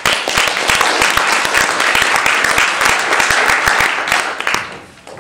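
Audience applauding, many hands clapping at once; the applause dies away near the end.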